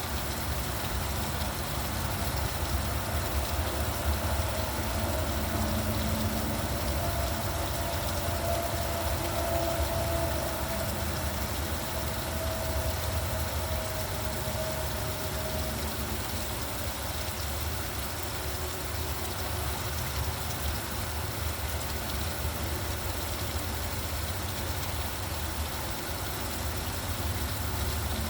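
Steady rain falling, over a constant low rumble of road traffic. A vehicle's engine hum comes in a few seconds in and fades out a little past the middle.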